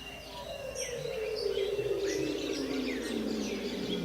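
Rainforest-style soundscape: many bird chirps and calls, layered over a noisy synthesized sweep that slides slowly down in pitch.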